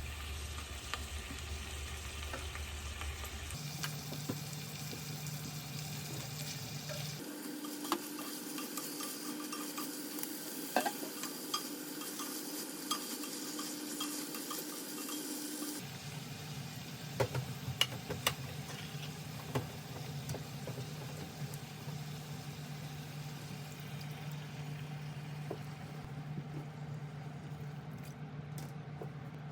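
Vegetables sizzling in a frying pan as they are stirred, with occasional light clicks of a utensil against the pan.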